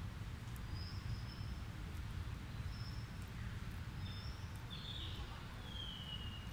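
Faint, thin high-pitched animal calls: a few short chirps, then a longer falling whistle near the end, over a steady low outdoor rumble.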